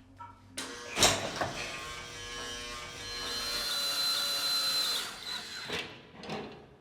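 Power drill running, with a steady high whine that builds and then stops, after a sharp knock about a second in.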